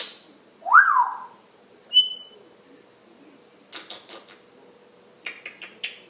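African grey parrot whistling and clicking: a loud whistle that rises and falls about a second in, a short high whistle at two seconds, then bursts of sharp clicks around four seconds and again near the end.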